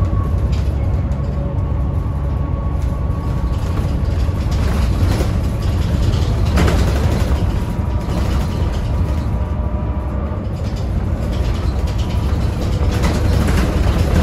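Isuzu Erga KL-LV834L1 city bus running, heard from inside the cabin: a steady low drone of the diesel engine and drivetrain with a faint whine, swelling slightly as it pulls, and a brief sharp knock or rattle about halfway through.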